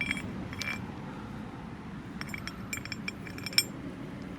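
Small metal parts and hand tools clinking and rattling: two light clinks at the start, then a quick run of clinks in the middle ending in one sharper clink.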